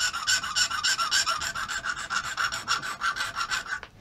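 Rat-tail file rasping back and forth through a hole in a bakelite pinball flipper part held in a vise, in quick, even strokes that stop just before the end. The hole has worn oval, and it is being enlarged so that a bushing fits snugly.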